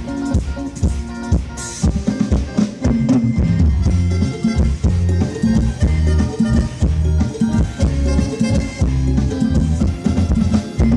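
Live band music: an instrumental passage of a mor lam song, with a drum kit beating out a steady rhythm under a strong bass line.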